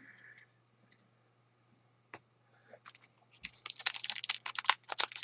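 Quick run of crisp clicking and crinkling from handling trading cards and foil pack wrappers, starting about three seconds in after a near-silent pause.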